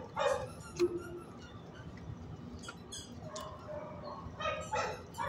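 Dog barking in a shelter kennel: a short bark just after the start, a click a little under a second in, then softer pitched dog calls in the second half.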